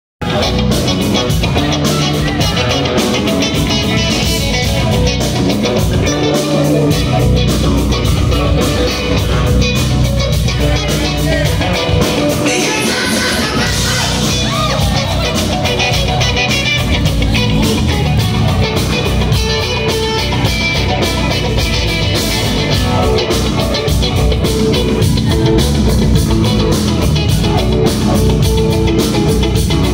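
Live rock band playing: electric guitar, drum kit and a Nord Stage 3 keyboard, with a man singing.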